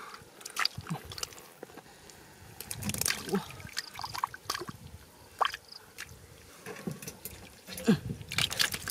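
Hands groping through shallow muddy water and wet mud: scattered squelches, small splashes and drips.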